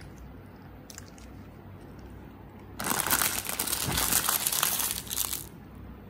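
A foil-lined plastic croissant wrapper being crumpled up in a hand, a loud dense crinkling that starts about three seconds in and lasts about two and a half seconds.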